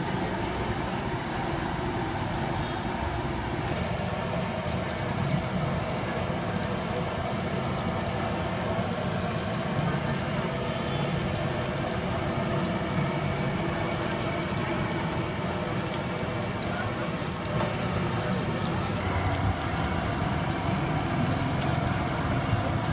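Aloo bondas deep-frying in oil: a steady sizzle with fine crackling, under background voices and street traffic.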